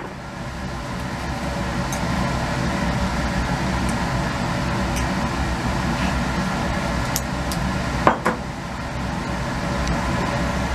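Steady hum of laboratory ventilation, with scattered light clicks and taps of a metal spatula and glassware as granular sodium sulfate drying agent is spooned into a glass flask. The sharpest taps come about eight seconds in.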